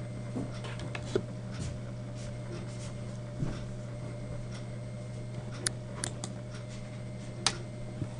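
Computer mouse clicking a few times, short sharp clicks scattered through, the sharpest past the middle and near the end, over a steady low hum.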